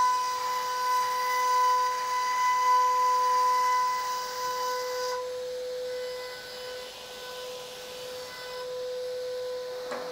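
High-speed router spindle with a 3 mm end mill running with a steady high whine, with a hissing cutting noise over it while it cuts a groove into the board. About five seconds in the hiss and upper tones drop away, leaving a quieter steady whine as the bit runs free, and there is a short click near the end.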